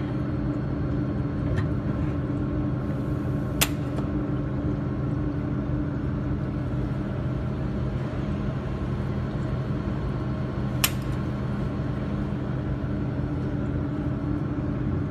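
Steady machine hum from a YAG jewelry laser welding machine and its water cooling, with two sharp single snaps about seven seconds apart, the sound of laser pulses test-fired onto a focus card.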